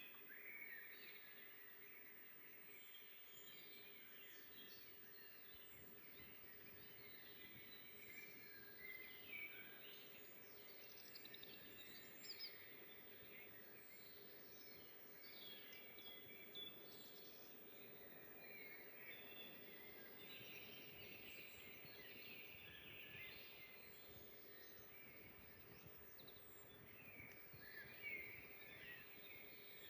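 Several small songbirds chirping and singing over each other in a forest, faint and steady, with short calls and trills throughout. A faint steady hum runs underneath.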